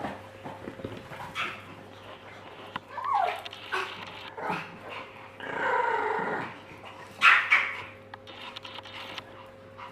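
A dog vocalising in a series of short calls, including a longer drawn-out whine around the middle, then two loud sharp calls in quick succession.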